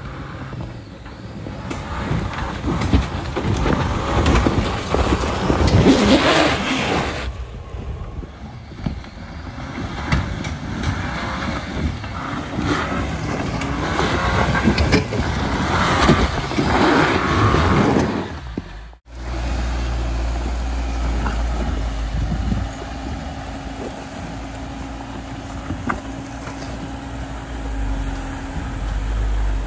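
Jeep Cherokee Trailhawk's engine revving in uneven surges as it climbs a rocky obstacle, with scattered knocks. After a sudden break about two-thirds of the way in, a steadier, lower engine drone follows.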